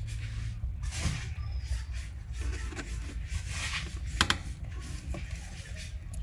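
Baby rabbit sucking milk: soft, irregular sucking clicks and rubbing noises over a steady low hum, with one sharper click a little after four seconds.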